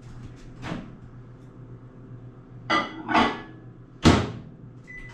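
A microwave oven being loaded: several knocks and clunks of the door and a bowl going in, the loudest a sharp clunk about four seconds in, then a short keypad beep near the end.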